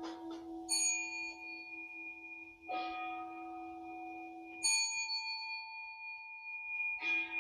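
Two meditation bells of different pitch struck in turn about every two seconds, four strikes in all, each ringing on long after it is struck; the lower bell's deep tone hums under the higher one.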